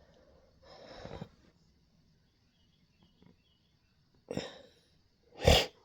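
A person breathing out in three short, noisy breaths, the last one the loudest, near the end.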